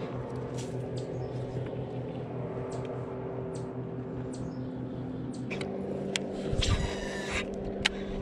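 Electric trolling motor running with a steady hum that changes pitch about five and a half seconds in. Scattered light clicks, with a short, louder rattling buzz near seven seconds.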